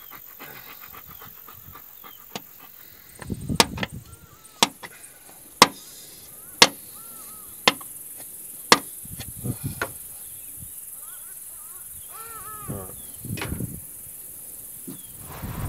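A series of sharp knocks about a second apart, mostly in the first half, as a tool strikes metal in the engine bay of a Toyota four-wheel drive that will not start, with handling thuds and a steady insect hiss behind.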